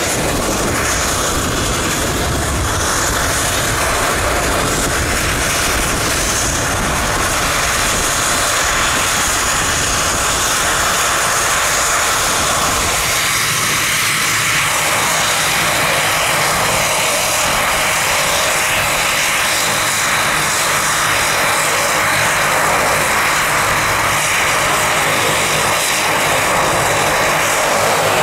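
Turboprop airplane engines running steadily, with a thin high whine over a broad rush of propeller noise. About halfway through, the low rumble fades while the higher whine carries on.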